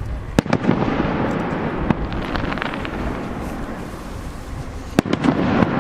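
Fireworks shells bursting: a sharp bang about half a second in and another near the end, each followed by a long rumble with crackling in between.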